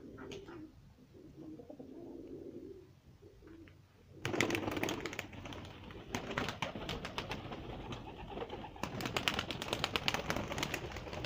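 Domestic pigeons cooing low. About four seconds in, a louder, busy rustling and clicking of the flock sets in.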